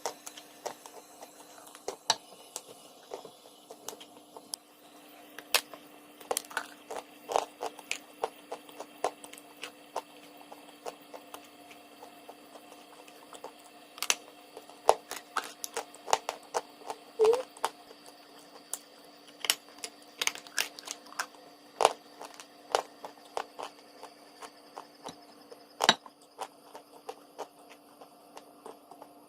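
Chalk crunching and crackling: irregular sharp snaps and crumbling clicks, some in quick clusters and a few louder single cracks, over a faint steady hum.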